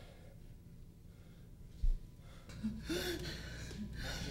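A dull low thump about two seconds in, then a man's gasping, breathy vocal sounds.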